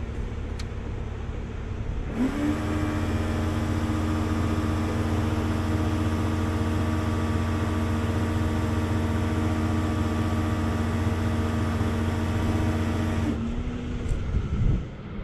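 Heavy rotator tow truck's engine speeding up about two seconds in to a steady raised idle as the hydraulic controls are worked, holding there with a hydraulic whine, then dropping back to idle near the end, followed by a few clunks.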